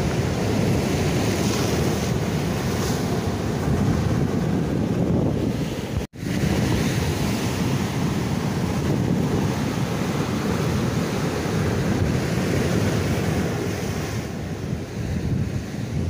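Strong surf breaking and churning against a concrete breakwater and its rock armour, a continuous loud rush, with wind buffeting the microphone. The sound cuts out abruptly for a split second about six seconds in.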